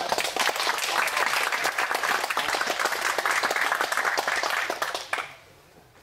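Small audience applauding, many hands clapping quickly and unevenly, dying away about five seconds in.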